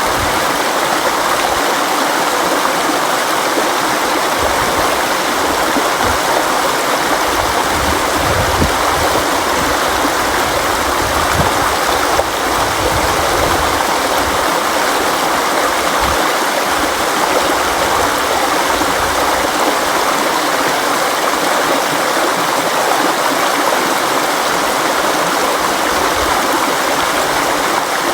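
River water flowing over rocks: a steady, even rush with a bubbling low rumble.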